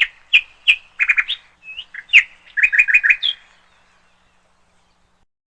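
Bird chirping in a quick series of short, high notes, a few rising at the end, with a fast run of four or five notes about three seconds in, then stopping.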